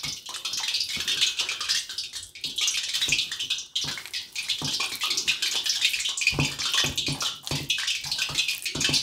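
Hands kneading soft, loose gram-flour dough in a stainless steel bowl: an irregular run of wet squelches and slaps, with a few dull knocks about six to seven seconds in.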